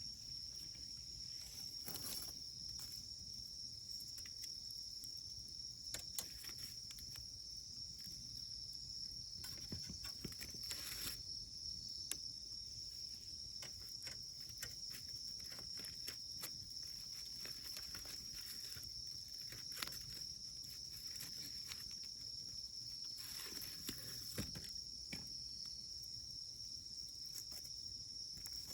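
Wood fire crackling, with irregular sharp pops and snaps, a few louder than the rest. Under it runs a steady high insect trill, like crickets.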